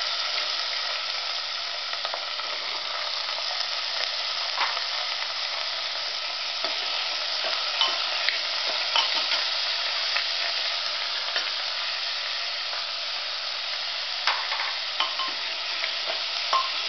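Chopped vegetables (bottle gourd, drumstick pods, onion) sizzling as they fry in ghee in a pressure cooker, stirred with a steel ladle that knocks against the pot now and then.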